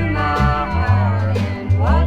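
Country song: a singing voice carrying the melody over steady bass notes, with a line that rises in pitch near the end.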